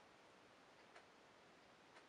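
Near silence: a quiet room with a faint clock ticking about once a second.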